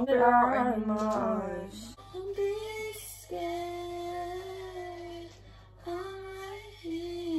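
Two young women singing a song, drawing out long held notes.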